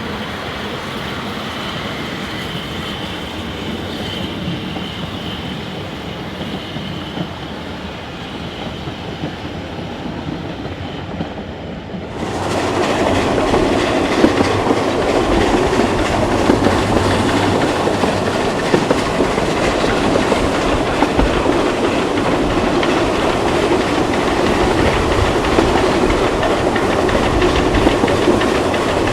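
A train running on rails, its wheels clattering over the track joints. About twelve seconds in, the sound cuts abruptly to a louder, fuller run.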